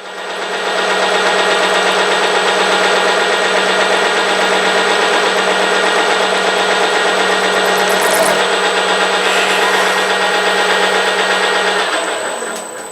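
CNC milling machine making a final light finishing pass, taking 0.1 off the square knuckle of a drive shaft: a steady machining whine that builds up in the first second and dies away shortly before the end.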